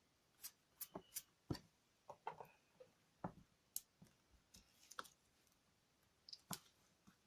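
Scattered light clicks and taps as card, magnet sheet and tape are handled and pressed on a craft desk, about fifteen irregular ticks in all.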